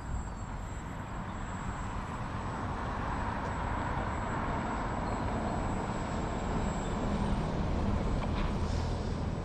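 Steady road traffic noise with low rumble, swelling louder near the end as a truck passes.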